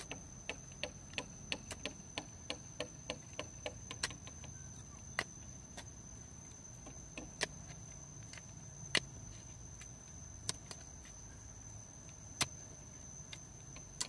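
Sharp knocks of hand-tool strikes on bamboo or wood, about three a second for the first four seconds, then single louder knocks every second or two. A steady high insect trill runs underneath.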